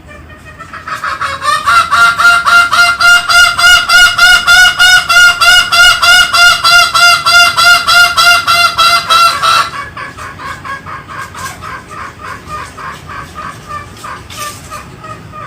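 Green junglefowl calling: a loud, rapid run of short, evenly spaced calls, about four or five a second, for roughly eight seconds, then a softer run of the same calls.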